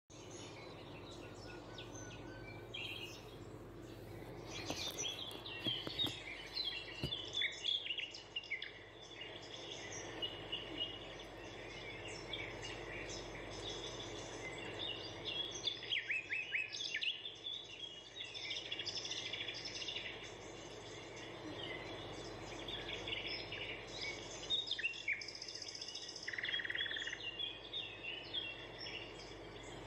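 Small birds chirping and calling repeatedly over a steady low background noise.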